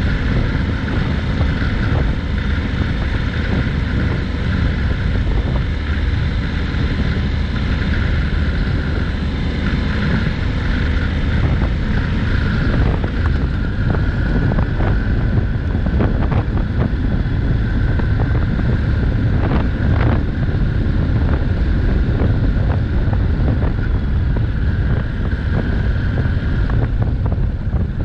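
Wind rushing over the microphone on a moving Honda NC750X motorcycle, with the bike's parallel-twin engine running steadily underneath. A few brief knocks come through about the middle.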